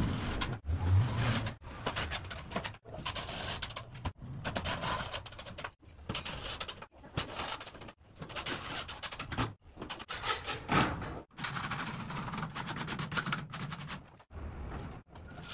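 Cordless drill driving screws through gypsum board into steel studs, mixed with the scrape and knock of metal framing being handled. The sound comes in short stretches broken by abrupt cuts.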